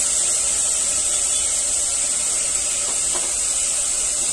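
Steady high hiss with no change in level, and one faint tap about three seconds in.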